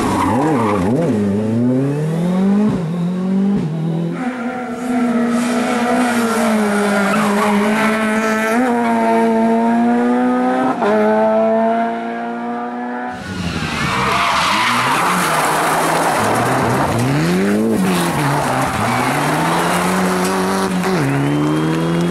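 Rally cars driven hard on a special stage: engines rev high and climb in steps through quick gear changes, then drop off and rise again as the cars brake and accelerate. About 13 seconds in the sound changes abruptly to another car, with a burst of tyre noise as it slides before its engine revs up again.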